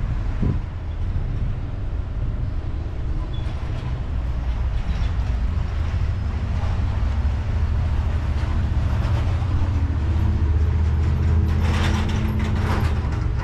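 Diesel pickup engine, a Ram 3500's Cummins, running with a steady low drone that grows a little louder about ten seconds in. A few short clatters come near the end.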